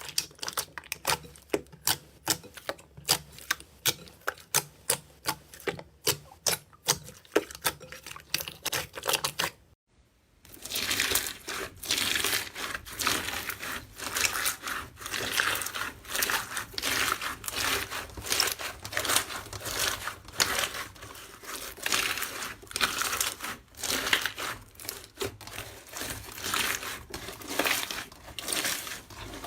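Slime being squeezed and poked by hand, giving rapid sharp clicks and pops. After a short break about a third of the way in, a denser, continuous crackling and crinkling follows as the slime is pressed and stretched.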